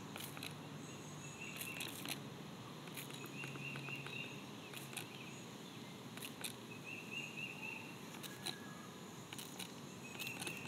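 Outdoor ambience with a short, high, rapidly pulsing trill that comes four times, a few seconds apart, and scattered faint clicks.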